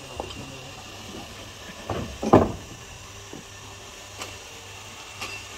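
Cut hardwood pieces clunking against each other and the timber beneath as they are handled and stacked. A few scattered knocks, the loudest a heavy double knock a little past two seconds in, over a faint steady low hum.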